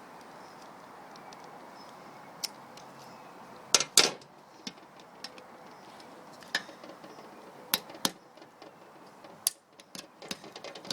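The plastic case of an old TV remote control being prised open: scattered sharp clicks and snaps as the clips give way, the loudest cluster about four seconds in.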